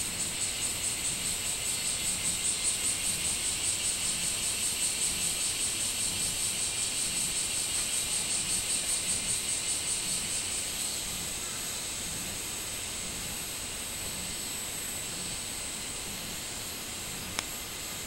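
Robust cicada (min-min cicada) singing, a high pulsing call at about three pulses a second that stops about eleven seconds in, leaving a steadier high insect drone. A single sharp click near the end.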